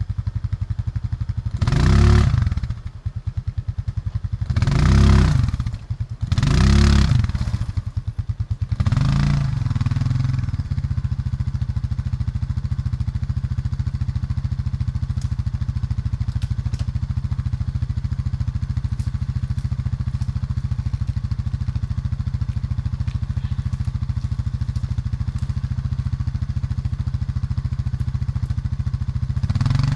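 Single-cylinder off-road engine idling steadily close by, revved up briefly four times in the first ten seconds, each time dropping back to idle, then idling evenly.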